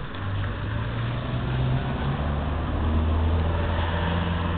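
A motor running with a low, steady drone that shifts up and down a little in pitch, over a constant background hiss.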